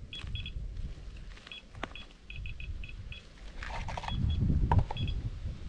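BELLA household dosimeter chirping at irregular intervals, a short high beep for each radiation count it detects, as it measures uranium-bearing ore samples. A low rumble runs underneath and swells about four seconds in, with a rustle of a gloved hand near the meter.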